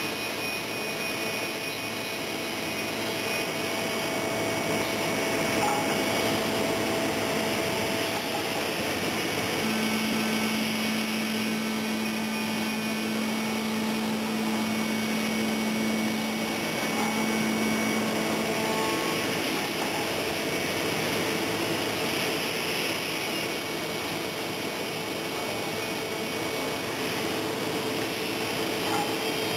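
Steady whooshing run of an industrial panel-processing woodworking machine and its dust extraction, with a low steady hum coming in for about nine seconds in the middle.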